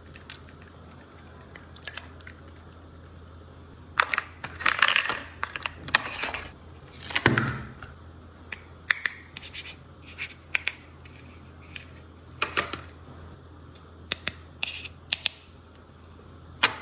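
Handling noise from a toy and its plastic packaging: scattered sharp clicks and taps, with a stretch of scraping and crinkling from about four to seven and a half seconds in, over a low steady hum.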